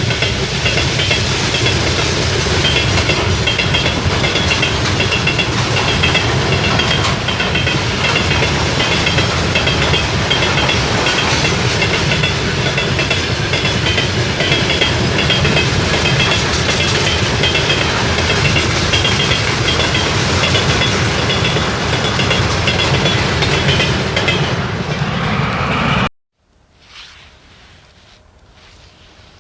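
Train passing close by, its wheels clattering over the rails, with a high steady ringing over the noise. It cuts off abruptly about 26 seconds in, leaving only a faint windy background.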